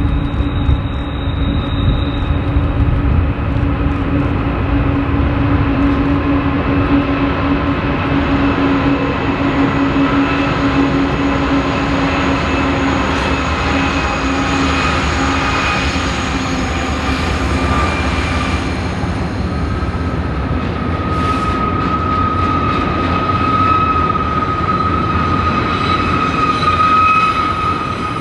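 BNSF freight train rolling past, a steady rumble of cars over the rails with high, steady wheel squeal ringing above it.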